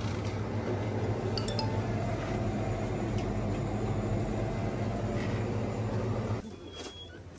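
Light clinks of an aluminium drink can against the wire shelf and glass door of a drinks cooler as a can is taken out, over a steady low hum that drops away near the end.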